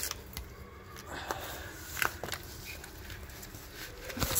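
A few scattered knocks and scuffs, with rustling, from a person climbing in through an opened window. The strongest knocks come about two seconds in and near the end.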